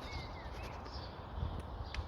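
Small birds chirping over a low rumble of wind on the microphone.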